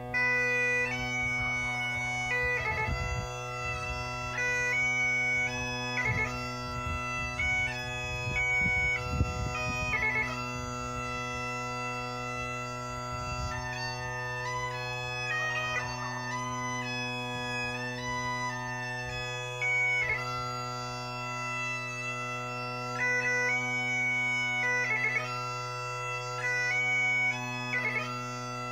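Great Highland Bagpipe playing a slow minor-key tune: the chanter melody, with quick grace-note flicks, comes in right at the start over steady drones. A rough rendition, by the piper's own account.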